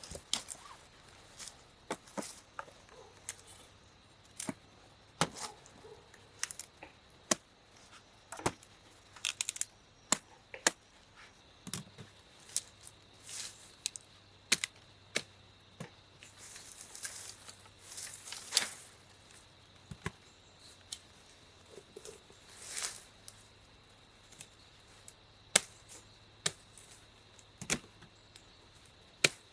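Irregular sharp knocks or chopping strokes, roughly one or two a second, some in quick clusters, with a few brief scraping or swishing noises between.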